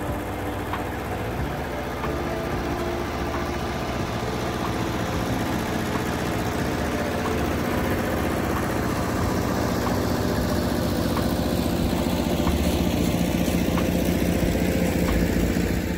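Massey Ferguson 202 Workbull industrial tractor engine running steadily as the tractor pushes snow with its loader bucket, growing louder as it comes close in the second half.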